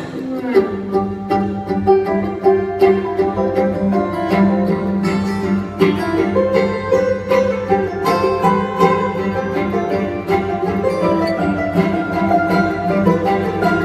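Acoustic string band of banjo, mandolin, fiddle, guitar and double bass playing an instrumental passage live, the whole band coming in loudly at once at the start after a hush, with quick picked notes over bowed, held tones.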